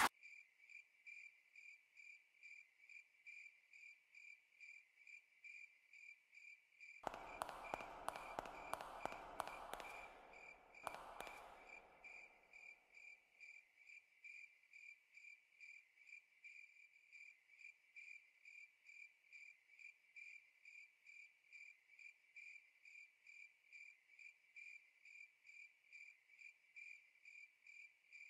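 Faint cricket chirping, a high chirp repeating evenly about one and a half times a second. About seven seconds in, a louder rumbling burst lasts some three seconds, and a shorter one follows near eleven seconds and fades away.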